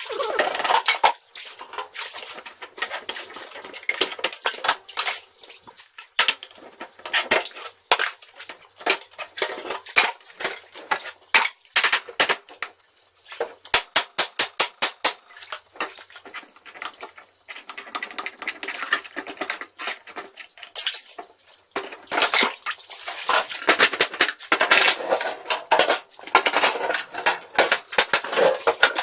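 Metal objects clattering and knocking against each other in quick, irregular clanks, as when metal boxes and drawers are rummaged through.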